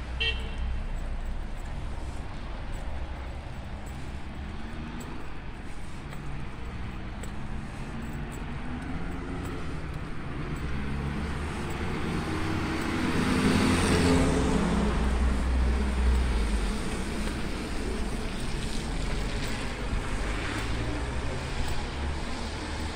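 A car passes along the wet street, its engine and tyres hissing on the wet asphalt, growing to a peak about fourteen seconds in and then fading, over a steady low rumble.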